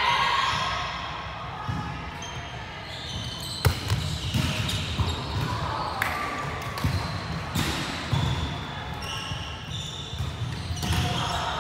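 Volleyball being struck during a rally in a large sports hall, with sharp slaps of hands on the ball, the loudest about three and a half seconds in, amid players' calls echoing off the hall.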